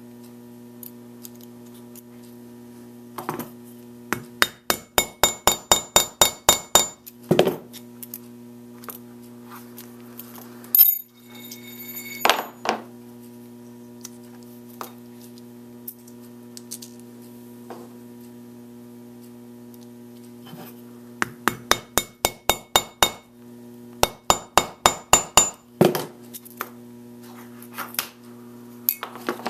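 A mallet striking a metal snap-setting tool, setting snap fasteners into leather on a metal base: three runs of quick, slightly ringing strikes, about four a second, with a few single taps between.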